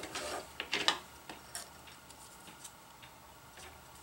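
Light clicks and rustles of fabric and thread being handled at a sewing machine after the stitching stops, bunched in the first second, then a few faint scattered ticks.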